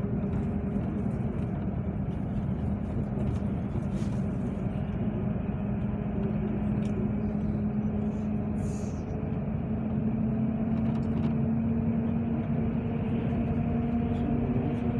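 Cabin noise inside a moving road vehicle: a steady low rumble of engine and tyres, with an engine hum that slowly rises a little in pitch. A few faint light ticks and rattles are heard over it.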